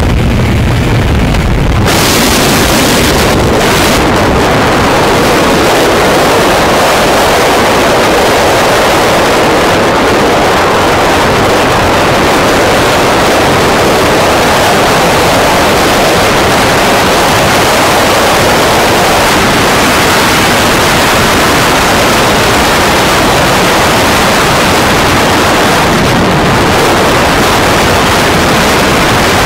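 Loud, steady rush of wind over the microphone of a motorcycle ridden at high speed. A low engine hum is heard at first, then about two seconds in the wind noise takes over and drowns the engine.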